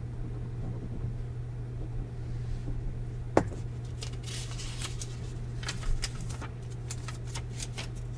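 Light desk handling noises over a steady low room hum: one sharp knock about three and a half seconds in, then a scatter of small clicks and rustles.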